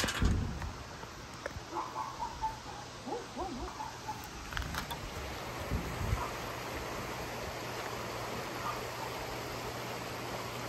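A few short, low hooting bird calls in the first few seconds, over a steady low hum.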